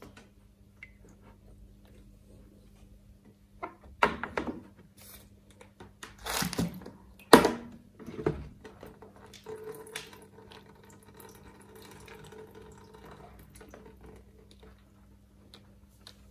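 Water dripping and trickling from the freshly rinsed fine filter fleece and plastic grid as they are handled over the filter basket of a canister filter. A few sharp plastic knocks and splashes come between about four and eight seconds in.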